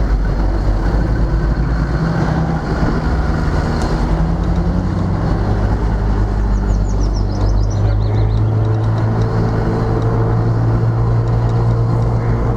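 Vehicle engine running steadily under a constant road noise, heard from inside the moving vehicle.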